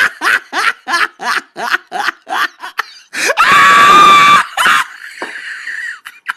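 A person laughing in quick, even bursts, then a loud high-pitched scream about three and a half seconds in, lasting about a second.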